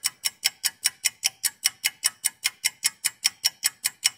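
Mechanical pocket watch ticking, crisp and even, about five ticks a second.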